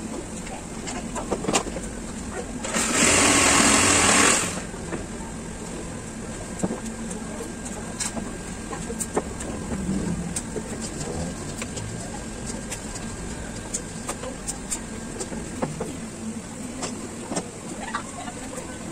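Wooden boards and nails are handled on a workbench, with scattered light clicks and taps. About three seconds in, a handheld power tool runs loudly for under two seconds, then stops.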